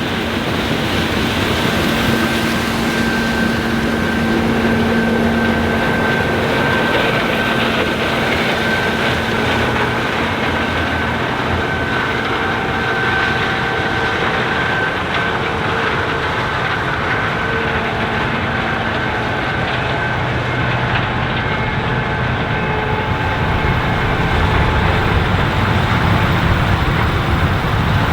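Challenger 560C combine running steadily while harvesting corn: a dense machine rumble with steady whines over it, the low rumble getting louder near the end.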